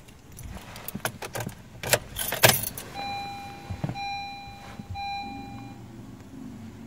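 A run of clicks and rattles, then a car's electronic warning chime sounds three times, each steady tone about a second long, in a 10th-gen Honda Civic hatchback.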